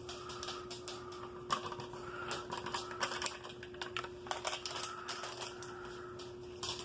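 Plastic MRE packaging crinkling and rustling as packets are handled, with irregular sharp clicks and crackles throughout.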